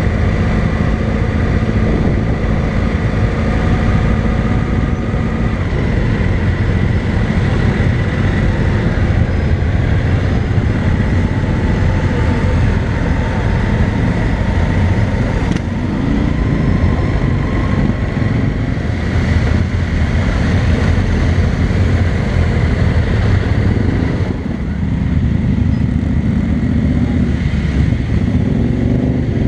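Motorcycle engine running steadily at low speed, heard close up from the rider's own bike, with other motorcycles running around it in a slow-moving column.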